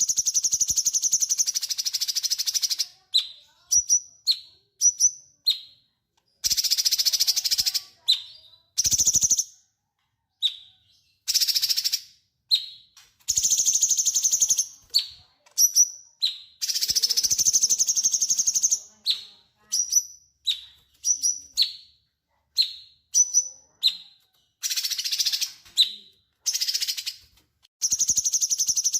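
Cucak cungkok singing: long, rapid, harsh chattering trills alternate with short whistled notes that each drop in pitch, in phrases separated by short pauses.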